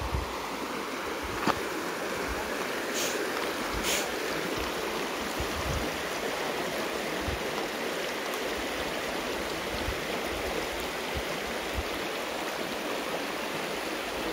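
Steady rush of a shallow, muddy stream flowing around a man wading waist-deep with a bamboo-poled scoop net. A sharp click comes about a second and a half in, and two short hissing splashes come around three and four seconds in.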